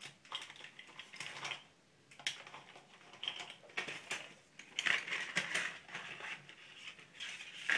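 A run of irregular small clicks and short scratchy noises in loose clusters, loudest about five seconds in.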